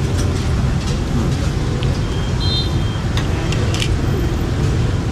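Steady low rumble of street traffic, with a few light clicks and a brief high squeak about two and a half seconds in.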